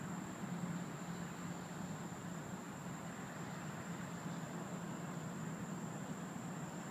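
Steady night ambience: a continuous high-pitched insect trill, like crickets, over a low steady hum and hiss. No thunder is heard.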